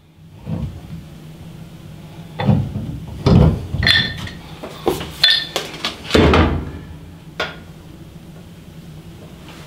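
Metal clinking and knocking of a wrench working the coupling nut of a braided stainless steel washing-machine hose as it is tightened onto the threaded laundry tap: a string of sharp, irregular clinks, some with a short metallic ring.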